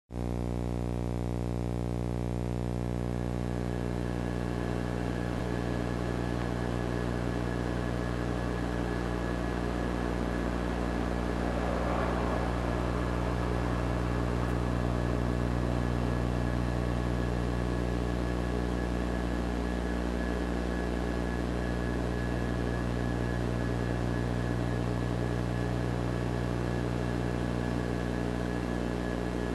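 Steady droning hum made of many stacked tones, unchanging throughout, with a brief rush of noise about twelve seconds in.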